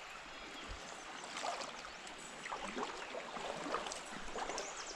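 Small creek's water flowing and gurgling, with short faint high ticks and squeaks scattered through.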